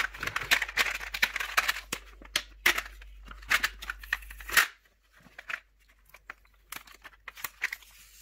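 Plastic blister packaging of a jigsaw blade set crackling and crinkling as it is pried open and the cardboard backing is peeled off, with a loud crack after about four and a half seconds. After that come sparser clicks and taps as the clear plastic blade case is handled.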